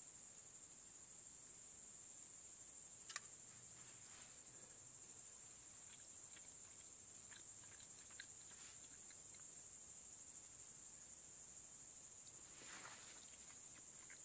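Insects chirring steadily in a high-pitched drone, with a sharp click about three seconds in and a few faint clicks after it.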